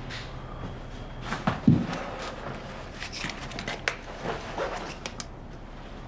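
Small handling noises from objects being moved and set down: a low thump about a second and a half in is the loudest, followed by a scatter of light clicks and rustles.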